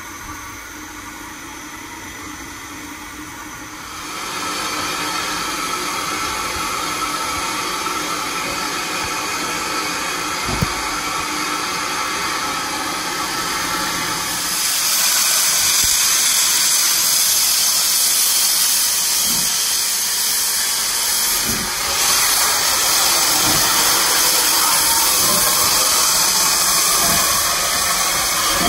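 Steam locomotive at a standstill, hissing steam steadily. The hiss gets louder about four seconds in and louder again about halfway through, with one short click shortly before that.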